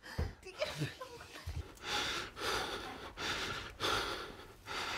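A person breathing heavily and gasping: a run of noisy breaths, about one to two a second, growing stronger from about two seconds in.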